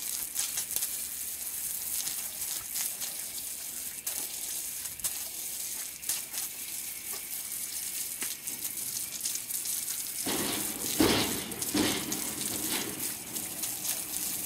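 Water from a garden hose spraying and splashing onto a horse's legs and a concrete wash pad, a steady hiss that grows louder and fuller for a couple of seconds about ten seconds in.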